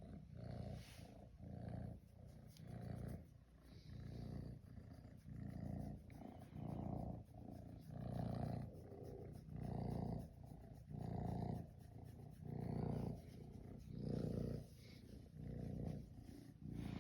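Kitten purring close to the microphone, in slow regular swells about every second and a half.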